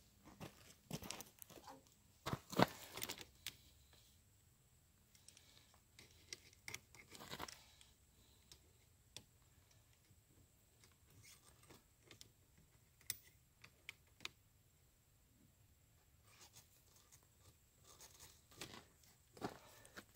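Faint, scattered clinks and rattles of a studded Trygg steel tractor tire chain being handled by hand at its connector. The loudest is a sharp knock about two and a half seconds in.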